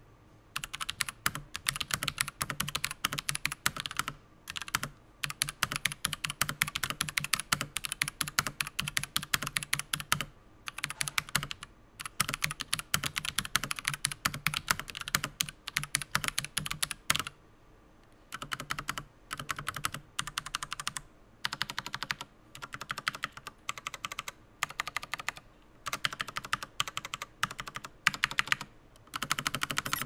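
Akko 3087 V2 DS Ocean Star mechanical keyboard with Akko V2 switches being typed on fast, in runs of keystrokes broken by brief pauses, the longest a little past halfway. The typing has a slight ring, which the reviewer says foam inside the case would damp.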